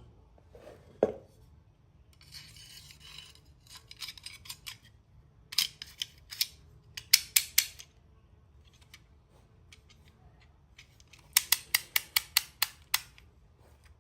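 DeWalt 25 mm snap-off utility knife being reassembled and worked: the blade scrapes as it slides into the metal body, then the slider ratchets through its detent stops in runs of sharp clicks, ending with a quick run of about nine clicks.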